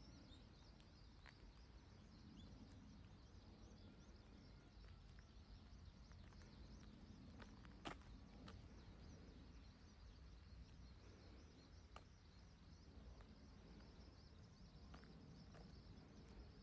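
Faint outdoor ambience: many distant birds chirping over a low steady rumble, with a few soft clicks, the sharpest about eight seconds in.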